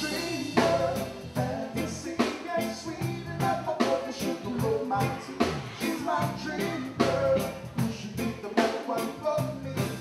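Live band music: a man singing into a handheld microphone over a drum kit playing a regular beat.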